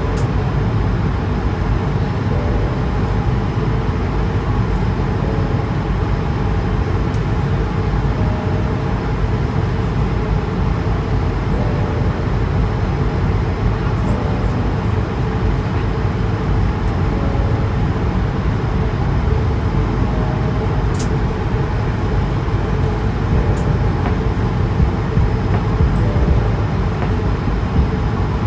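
Steady cabin noise of an Airbus A220-300 in flight: an even rush of airflow and engine noise from its Pratt & Whitney PW1500G geared turbofans, with a few faint clicks scattered through it.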